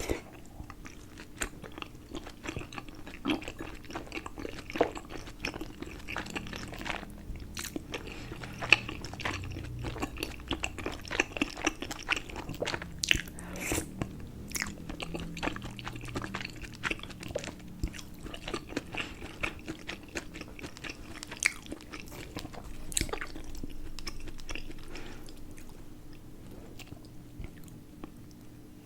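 Close-miked chewing and biting of momos (dumplings): irregular wet clicks and smacks of the mouth, over a steady low hum.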